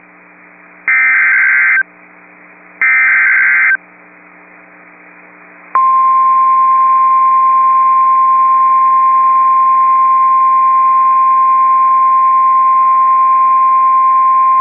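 NOAA Weather Radio Emergency Alert System tones: the last two of the three SAME header data bursts, each a harsh buzzing screech about a second long, then, after a pause of about two seconds, the single steady 1050 Hz Warning Alarm Tone sounding for about nine seconds. The sequence wakes weather-radio receivers ahead of a voice warning. It is heard over a faint steady hum and hiss from the receiver.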